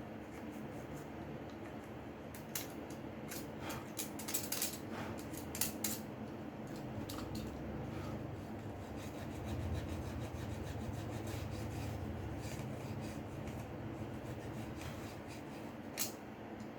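Rubbing and scraping from hand work on a Samsung Galaxy J6 during disassembly. A quick run of small, sharp clicks and taps comes a few seconds in, and one more click comes near the end.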